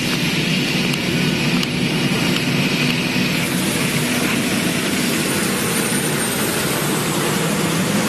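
Diesel engine of a self-propelled slurry tanker with a soil injector, running steadily under load as it drives past, with a hiss over the engine hum that fades about three and a half seconds in.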